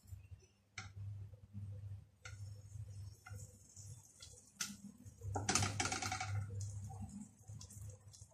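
Spatula tapping and scraping in a nonstick saucepan as butter melts, with a faint sizzle building from about three seconds in. The loudest moment is a longer scrape with a ringing squeak about five and a half seconds in.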